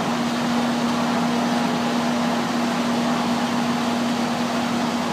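Steady background machine hum and hiss with one constant low tone, unchanging throughout.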